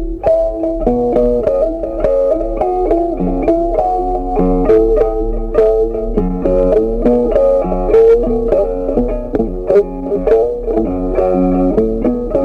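Background music: a plucked guitar melody of quick, changing notes over a low bass line.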